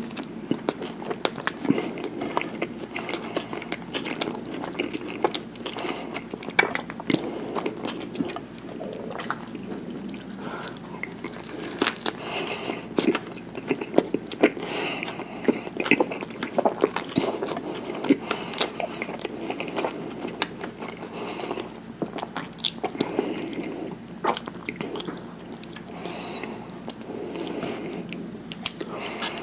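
Close-miked eating: a person chewing and biting food, with many sharp, irregular mouth clicks and occasional crunches.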